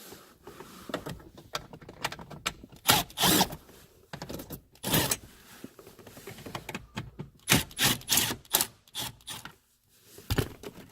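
Irregular clicks, scrapes and rattles of hand tools and bolts while the lower dash panel under a steering column is being unbolted, in short bursts spread through the stretch.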